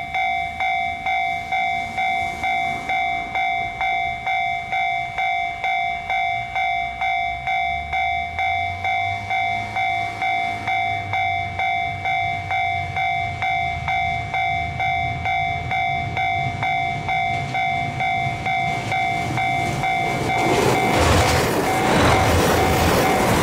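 An electronic level-crossing warning bell rings about twice a second, each strike a bright ringing tone that fades, over a growing low rumble as a KiHa 201 series diesel railcar set coupled with a 731 series electric train approaches. From about 20 s in, the train passes close by and its wheel and running noise becomes the loudest sound.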